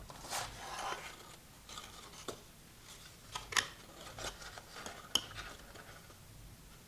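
Faint rustling and rubbing of card stock being handled and pressed together as glued tabs are held in place, with a few small sharp clicks.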